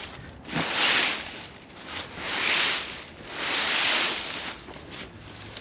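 Dry pumpkin vine and its leaves rustling and swishing as they are handled, in three swells about a second long each.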